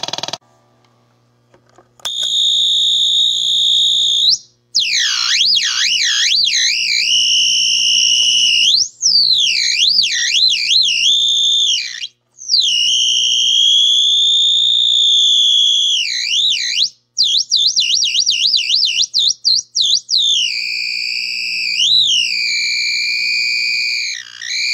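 Basic Audio Pendulum fuzz pedal self-oscillating: shrill, bird-like squealing tones that swoop and warble up and down in pitch as its knobs are turned. The squeal drops out briefly a few times and wobbles rapidly for a stretch near the middle. It starts about two seconds in, after a fuzzed guitar chord cuts off.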